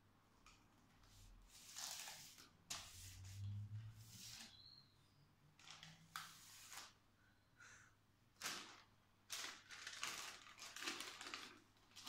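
Faint rustling and crinkling of wrapping paper in short, irregular bursts as a wrapped gift is handled and its paper picked open.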